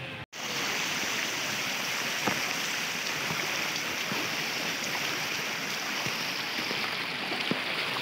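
Waterfall: a steady, even rush of falling water, cutting in after a brief silent gap at the start.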